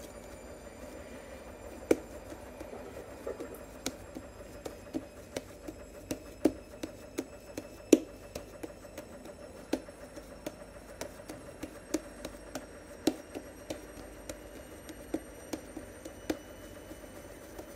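Homemade slime with foam balls mixed in, squeezed and kneaded by hand, giving irregular sharp clicks and pops about one or two a second. The loudest come about two seconds in and near the middle.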